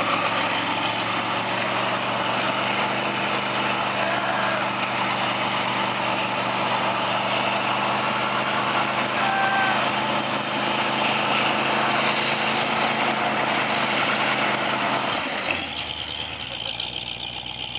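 Off-road buggy's engine held at steady revs during a burnout, the rear tyre spinning in the dirt. About fifteen seconds in the engine eases off and the sound drops.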